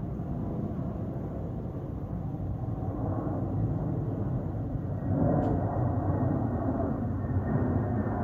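Jet airliner flying over: a steady low rumble that grows louder and fuller about five seconds in.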